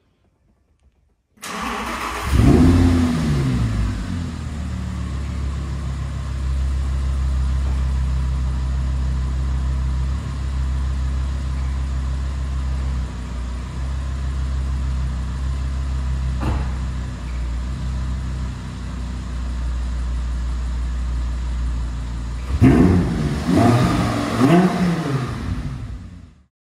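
Audi R8's 5.2-litre V10 engine running: the revs briefly rise and fall, then it settles to a steady idle, and it is blipped twice near the end before the sound cuts off suddenly. A single sharp knock is heard about sixteen seconds in.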